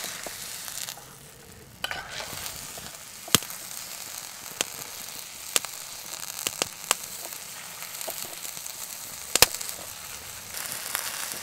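Trout frying in oil in a pan: a steady sizzle with a handful of sharp pops. The sizzle drops away briefly about a second in, then picks up again.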